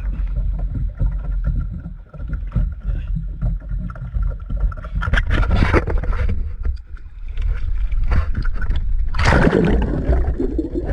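Steady low rumble of wind and sea around a plastic sit-on-top kayak. About nine seconds in there is a loud splash and a rush of bubbles as a snorkeler goes into the water.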